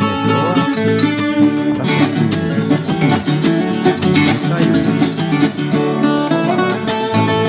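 Instrumental background music led by plucked acoustic guitar, busy and steady.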